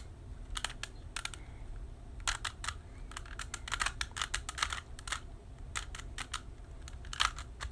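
Plastic Rubik's cube being twisted by hand, its layers turning with quick, irregular clicks that come in short bursts and pauses.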